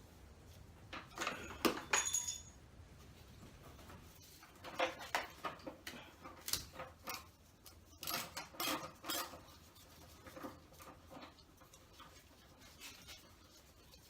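Scattered metal clinks and knocks of hand tools and engine parts being handled, with one short ringing clink about two seconds in.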